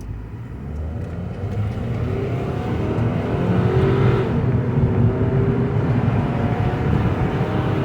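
2009 Mazda 5's four-cylinder engine accelerating hard, its pitch and loudness climbing, with the automatic transmission shifting up about four seconds in and the engine pitch rising again after the shift.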